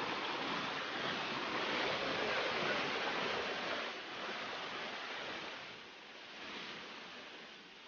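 Rushing water of a small cascade pouring over limestone rock, a steady hiss that grows fainter from about four seconds in.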